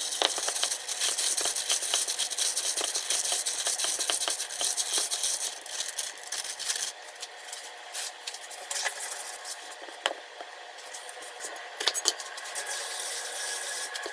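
Gloved hand kneading a wet shrimp-and-hijiki mixture in a stainless-steel bowl: plastic glove crinkling and squelching, with small clicks against the metal. About seven seconds in the mixing stops, and a few light knocks follow as things are set down on the wooden cutting board.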